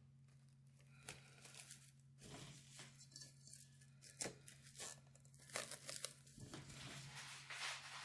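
Faint scattered rustles, crinkles and soft taps of hands at kitchen work, busier in the second half, over a low steady hum.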